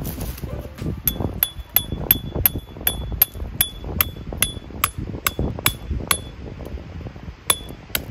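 A hammer driving a tent peg into gravel ground: about fourteen quick blows at an even pace, a little over two a second, each with a short metallic ring. After a brief pause, two more blows come near the end.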